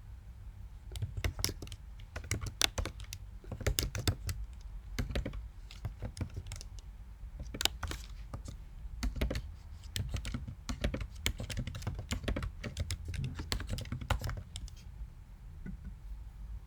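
Typing on a computer keyboard: irregular key clicks in quick runs, thinning out near the end.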